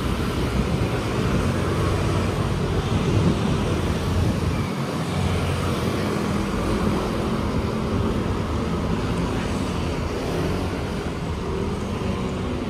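Road traffic: motor scooters and small trucks passing close by, their engines rising and falling in pitch over a steady roadway rumble.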